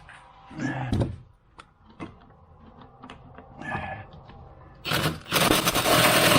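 A few light metal clicks and clinks of tools. Then, about five seconds in, a power impact wrench hammers loudly in a fast rattle for about two seconds.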